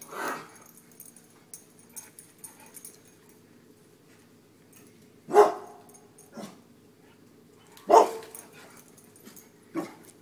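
Dogs barking in single sharp barks, several seconds apart. They are alarm barks from dogs spooked by a mounted deer head.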